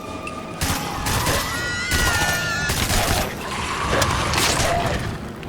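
A dense jumble of bangs, crashes and rumbling noise, with a pitched tone that rises and then holds for about a second and a half, a little over a second in.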